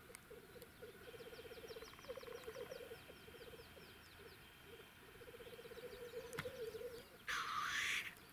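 Black grouse cocks bubbling (rookooing) on a lek, a low warbling burble that goes on almost without a break. About seven seconds in, one bird gives a loud hissing chuff lasting under a second. Between about one and three seconds in, a quick high trill of falling notes comes from another bird.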